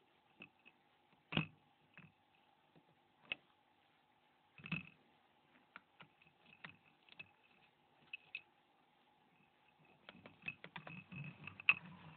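Faint, irregular clicks and taps of metal tweezers working the small plastic parts and connector of a mobile phone, with a busier run of small clicks and scraping near the end.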